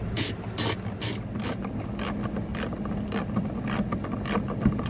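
Ratchet wrench clicking in a steady rhythm, about two clicks a second, as a nut is tightened onto a cleat's mounting bolt. The clicks grow fainter after about a second and a half.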